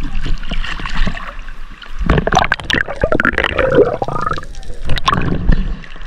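Water splashing and gurgling, with sharp knocks and clicks bunched about two seconds in and again near five seconds.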